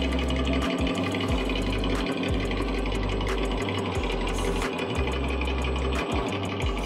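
RC engine sound simulator playing a simulated diesel truck engine through its small speaker, a steady, rapid mechanical clatter with a deep low hum that cuts in and out every second or so.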